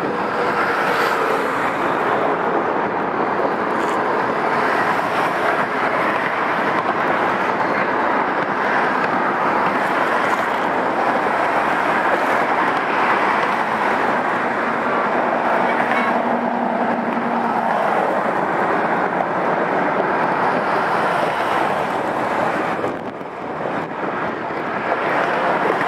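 Steady rush of motor traffic passing on a highway bridge, mixed with wind on the microphone, easing briefly near the end.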